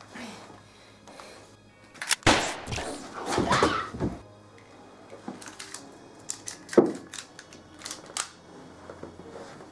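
Background music, with a loud sudden blast about two seconds in that dies away over about two seconds, then a run of sharp clicks and knocks, the loudest a little before seven seconds in.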